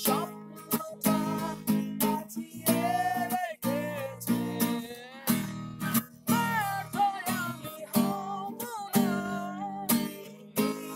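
Acoustic guitar strummed in a steady rhythm, with a voice singing a song over it.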